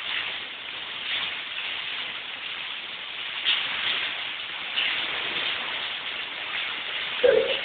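Steady rain falling, with scattered louder drops and patters. A short, louder low sound comes near the end.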